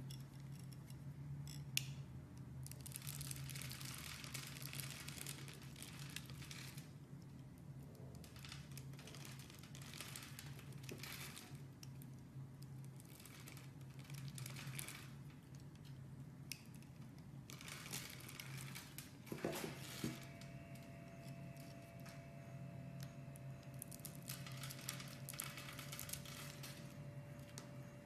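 A utility-knife blade cutting and scraping through a grid-scored bar of soap, a crisp crackling scratch as small cubes of soap break off, in stretches of a few seconds with pauses between. A steady low hum runs underneath, and a faint steady tone comes in about two-thirds of the way through.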